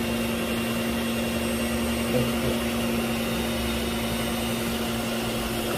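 Electric stand mixer's motor running steadily with a constant hum, spinning a homemade perforated beer-can cotton-candy spinner. The mixer is a 220 V machine run on 110 V, which the owner takes to mean it is below full power.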